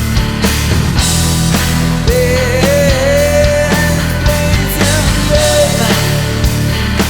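Rock music from a full band with regular drum hits, plus a sustained lead melody line that bends in pitch, coming in about two seconds in and fading near the end.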